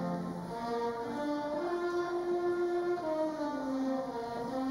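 School orchestra of strings and trombones playing a slow piece in long held notes, the melody moving step by step.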